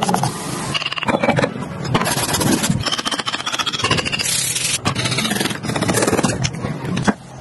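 Wood being sanded and scraped by hand: abrasive and hand tools rasping over wood in repeated strokes.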